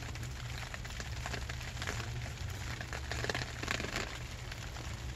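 Rain pattering on the plastic tarp sheltering the microphone: a steady, dense crackle of small drop ticks, a little louder about three to four seconds in.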